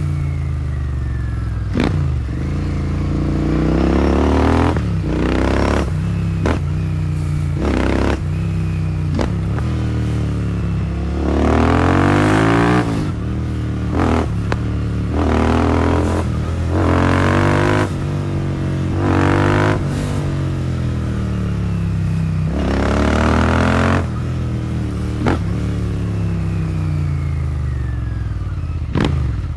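Royal Enfield Continental GT650's 648 cc parallel-twin engine through a Powerage short-cone aftermarket exhaust, heard while riding. The exhaust note rises in repeated pulls of a second or two (the strongest near the middle and about two-thirds of the way in), drops at each gear change and eases back between pulls, with brief sharp cracks in between.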